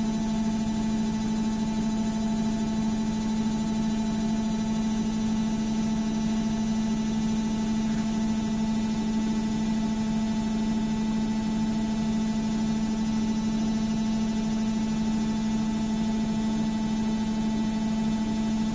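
Washing machine running with a steady, unchanging motor hum, a low tone with fainter higher tones over a noisy whir.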